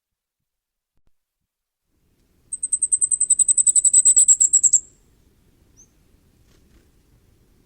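Common firecrest singing: a single song of very high, thin notes repeated quickly, about ten a second, lasting a little over two seconds. The notes grow louder toward the end, and the song stops abruptly. A faint single high note follows about a second later.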